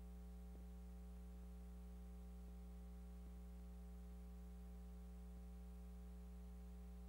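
Near silence: a faint, steady electrical hum with light hiss on the soundtrack of an old film transfer.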